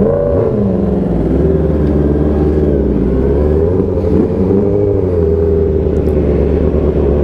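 Yamaha YZF-R6's inline-four engine pulling away at low speed, its pitch rising and falling over the first second or so, then running steadier.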